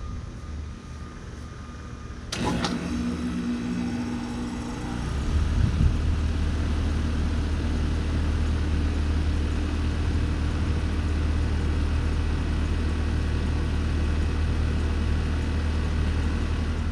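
Carrier Sentry 3.5-ton central air conditioner starting up: a sharp click about two seconds in, then its scroll compressor and condenser fan come on with a hum that grows louder over a few seconds and settles into a steady run.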